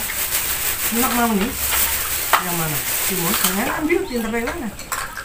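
A thin plastic bag crinkling as it is handled, with voices talking over it and a single sharp click about two and a half seconds in.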